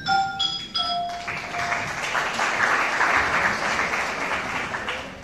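A few pitched instrument notes, the last one held, then audience applause for about four seconds.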